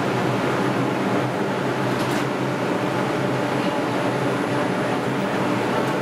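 Bombardier R142 subway train standing at the platform with its doors open, its onboard equipment humming steadily with several low tones, the climate-control fans running at a low setting.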